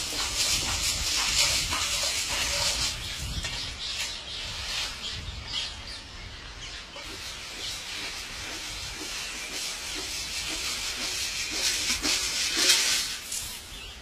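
Grain poured and flung from a bucket onto a concrete rooftop, a dense hissing patter of grains landing, loudest at the start and surging again near the end. Birds call faintly in the background.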